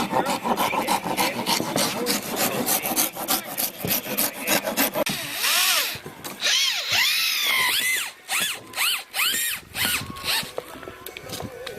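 Wood scraping and rasping: quick, dense strokes at first, then from about halfway a series of strokes that each rise and fall in pitch.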